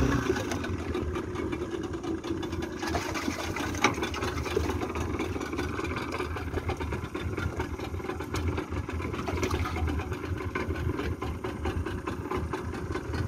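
Yamaha 40 hp outboard motor idling steadily.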